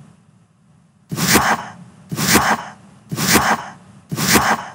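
Countdown-timer sound effect: a sharp, noisy hit once a second, four times, each dying away over about half a second, marking the seconds as the quiz timer counts down.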